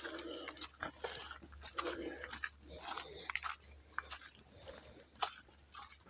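Footsteps crunching on a wet gravel-and-dirt hiking trail at a walking pace.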